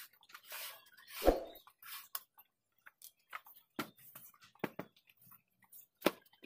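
Scattered short knocks and thumps as a foam cushion is handled on a wooden bench frame, the loudest a dull thud about a second in.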